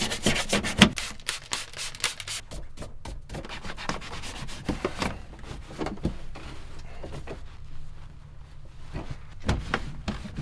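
Detailing brush scrubbing the dusty plastic console and trim of a tractor cab: quick back-and-forth scratchy strokes, dense for the first few seconds, then slower and softer, with one harder stroke near the end.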